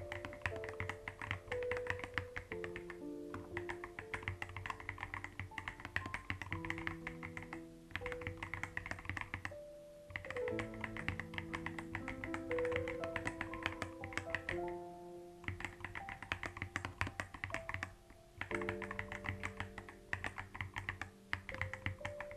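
Typing on a computer keyboard: rapid runs of key clicks with short pauses between them, over soft, slow background music.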